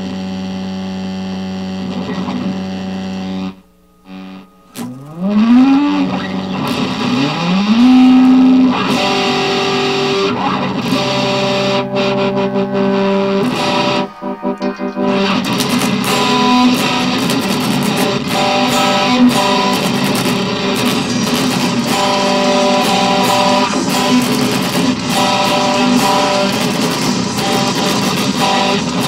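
Electric guitar playing: a held chord that cuts off about three and a half seconds in, two notes bent upward in pitch, then melodic picking, and after a short break about fifteen seconds in, fast busy playing.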